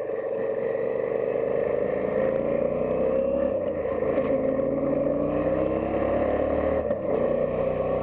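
Yamaha Ténéré 700's 689cc CP2 parallel-twin engine running as the bike rides along, its pitch rising and falling with the throttle. There is a brief dip about halfway through and another near the end.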